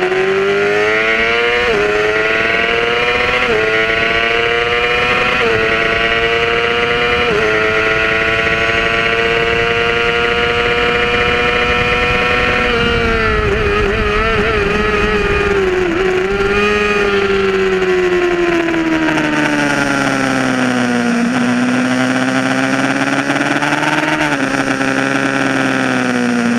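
Yamaha R6 inline-four sport-bike engine at full throttle, climbing in pitch through the gears with four quick upshifts in the first seven seconds, then holding high revs. About halfway in the revs drop away under hard braking with rapid downshifts, and the engine runs on part throttle through the following corners, with steady wind rush over the screen.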